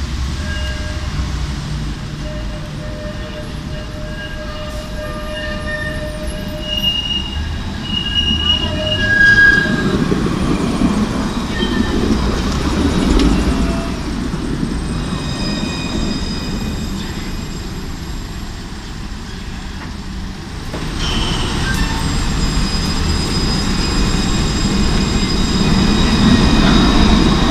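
Alstom Citadis 302 trams running on street track through a tram stop: a continuous low rolling rumble of steel wheels on rail, with thin, high-pitched squealing tones that come and go. The sound changes abruptly about two-thirds of the way through.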